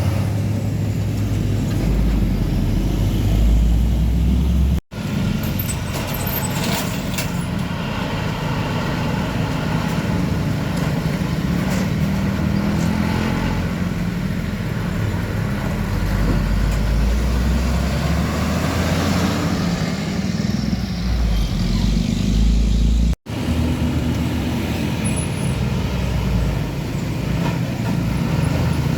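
Heavy diesel trucks and road traffic passing, a steady low engine rumble with tyre and road noise. The sound breaks off abruptly for an instant about five seconds in and again about four-fifths of the way through, as one clip cuts to the next.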